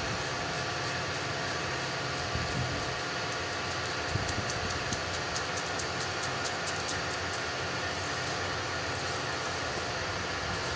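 Knife scoring and dicing watermelon flesh against the rind over a steel pot: a run of quick, light clicks between about four and seven and a half seconds in, over a steady background rumble and hum.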